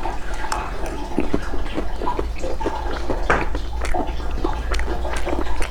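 Close-miked wet eating sounds: chewing with many short irregular smacks and squelches, over a steady low hum.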